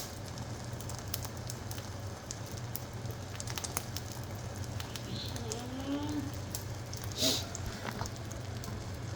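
Eggs frying in hot oil in a pan: a steady sizzle with scattered crackling pops, one louder pop about seven seconds in.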